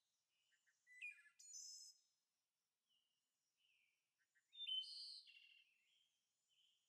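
Faint songbird chirping: two main bursts of high chirps and whistled notes, about a second in and again around five seconds in, with a few softer calls between.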